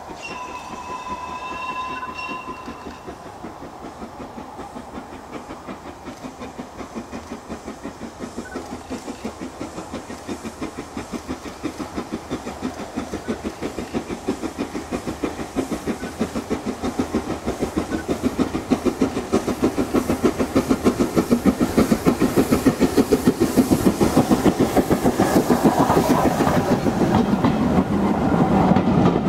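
Steam locomotive sounding a short whistle, then approaching with a rake of Mk1 coaches, its rhythmic beat and wheel clatter on the rails growing steadily louder as it draws near and the coaches pass close by.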